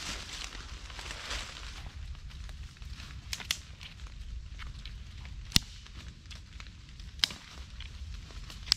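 Rustling in dry fallen leaves, then dry sticks snapping in sharp cracks. There are a few light cracks, then three loud ones, each about a second and a half apart, in the second half.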